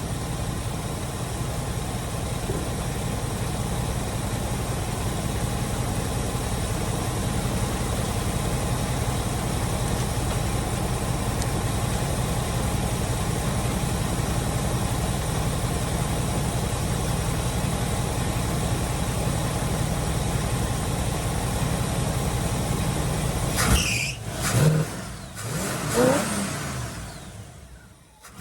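Car engine fed by a freshly rebuilt Edelbrock carburettor, idling steadily, its idle not yet fully adjusted. Near the end the steady idle gives way to a few loud, sudden sounds with sliding pitch.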